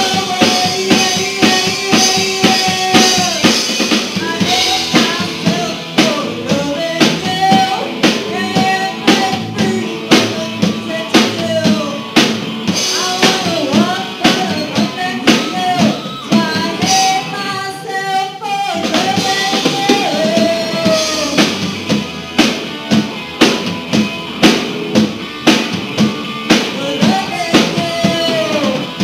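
Live rock band playing: drum kit keeping a steady beat, with electric guitars, bass and a lead vocal sung over them.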